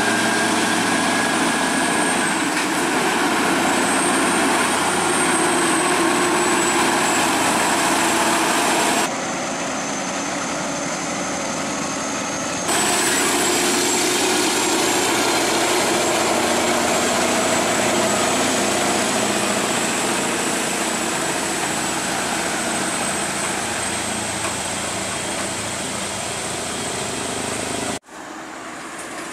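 Scania R580 heavy truck's V8 diesel engine running as the tractor unit pulls a low-loader carrying a heavy tracked excavator, with a thin high whine over the engine noise. The sound jumps abruptly in level about nine seconds in, again a few seconds later, and near the end.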